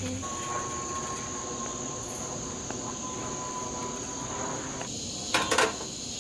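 Insects chirring in a steady, high-pitched chorus, with a few brief knocks near the end.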